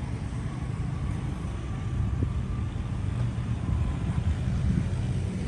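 Steady low outdoor rumble, with a faint tone holding for a second or two partway through.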